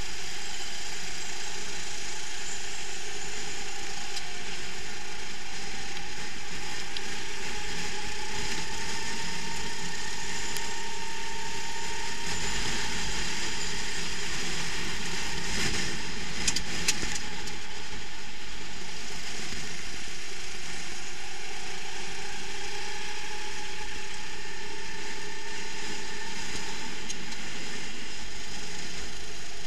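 Go-kart engine heard from on board during a race, its revs climbing slowly, dropping back around halfway, then climbing again, over a steady rush of wind. A few sharp knocks come a little over halfway through.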